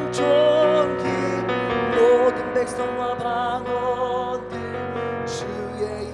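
Worship song sung live over keyboard accompaniment, the voice wavering in vibrato on held notes.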